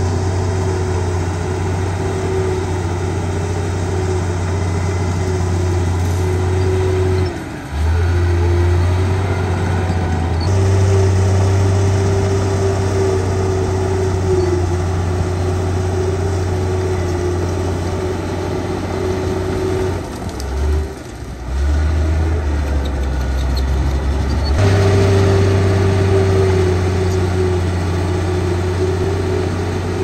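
Heavy diesel engine of a Komatsu bulldozer running continuously, a deep steady drone with a higher steady tone over it; the engine note shifts abruptly a few times.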